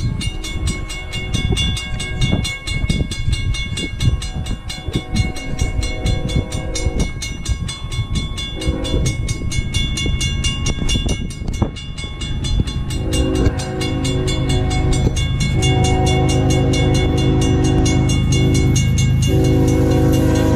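Norfolk Southern freight locomotive's horn blowing long blasts for the grade crossing, faint at first and much louder from about two-thirds of the way in as the train nears, with the engine rumble building under it. A crossing bell rings steadily throughout.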